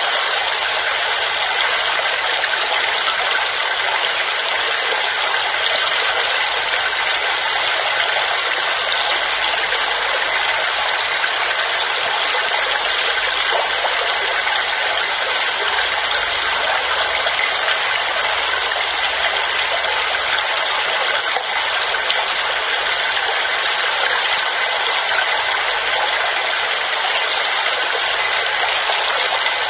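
Waterfall: a steady rush of falling water, bright and hissy with little low rumble.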